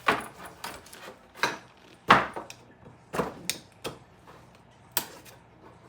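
Putty knife knocking and scraping against a 3D printer's build plate, prying a print that is stuck fast to the bed. About seven sharp knocks at uneven intervals, the loudest about two seconds in.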